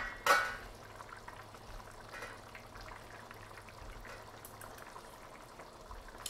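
A pan of tomato sauce simmering faintly on a gas burner, with one brief sharp sound just after the start and a steady low hum underneath.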